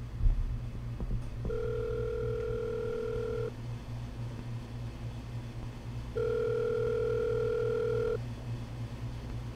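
Telephone ringback tone heard through a phone handset: two long steady beeps of about two seconds each, a few seconds apart, as the call rings without being answered. A steady low hum lies underneath, with a brief low bump at the very start.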